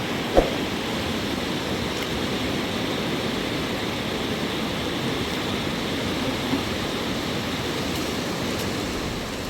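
Steady rush of flowing river water, with one short sharp sound about half a second in and a fainter one near two thirds of the way through.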